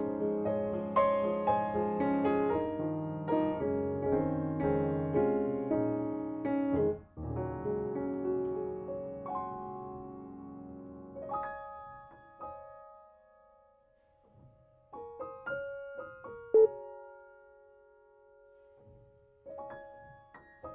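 Soft background piano music. Full chords for the first several seconds thin out after about eleven seconds to a few sparse held notes with quiet gaps between them.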